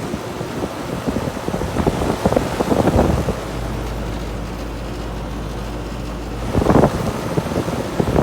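2016 Ruud heat pump outdoor unit running, mostly covered by wind rumble on the microphone. The rumble comes in gusts, with a steadier low rumble in the middle.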